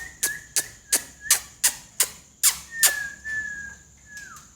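A whistle held on one pitch, with sharp clicks about three a second over its first three seconds, then a longer held whistle that slides down in pitch near the end.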